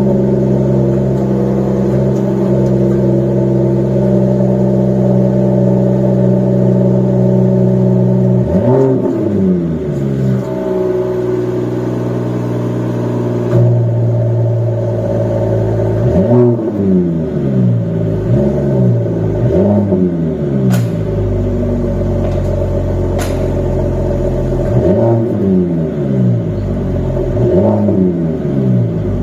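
Mercedes-AMG E53 3.0-litre straight-six through a valved aftermarket exhaust, idling steadily and then revved in quick throttle blips: one blip, then a burst of three, then a burst of about four. Each blip rises and falls back to idle.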